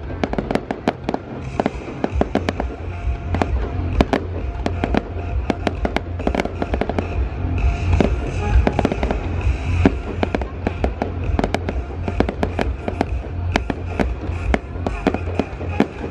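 Aerial firework shells bursting in a dense, unbroken run of sharp bangs and crackles.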